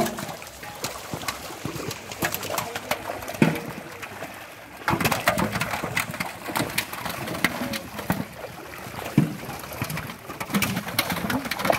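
Fish thrashing in a drawn seine net in shallow pond water: many short, irregular splashes and slaps at the surface.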